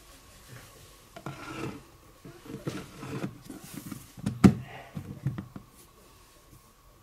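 Plastic lid being pressed onto a plastic bowl: plastic rubbing and scraping in several short bouts, with one sharp click about halfway through.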